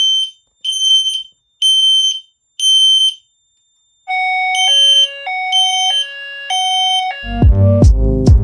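Fire alarm horn sounding a high 3000 Hz beep about once a second, four beeps that stop about 3 seconds in. About a second later an electronic tone begins alternating between two pitches, and near the end music with a heavy beat comes in.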